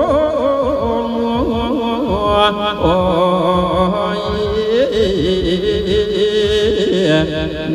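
Isan sung sermon (thet lae) playing through a loudspeaker sound system: a voice chants in long, ornamented gliding phrases over held notes and a steady low beat.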